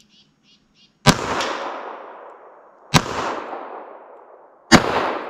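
Three shots from a 2-inch snub-nose .38 Special revolver firing slow 158 grain lead round-nose hand loads, a little under two seconds apart, each with a long echo fading away. A few faint clicks come just before the first shot.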